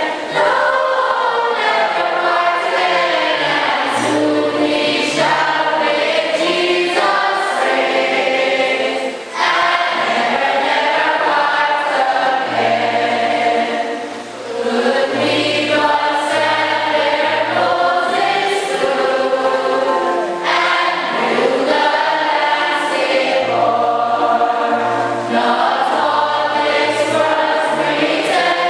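Church choir or congregation singing a hymn together, many voices in long held lines.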